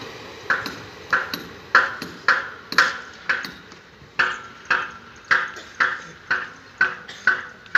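Footsteps on railway track ballast stones, about two sharp clinking steps a second, starting about half a second in.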